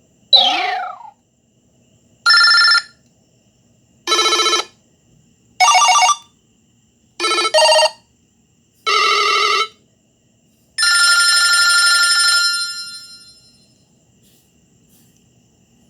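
BlackBerry Bold 9000 alert tones played one after another: seven short electronic chimes, each different, with pauses between. The first is a quick pitch sweep down and back up, the fifth is a double note, and the last is a longer chime that rings on and fades out.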